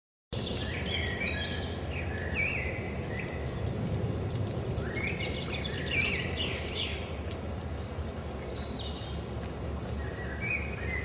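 Forest ambience: several birds chirping and singing over a steady low background noise, cutting in just after a moment of silence.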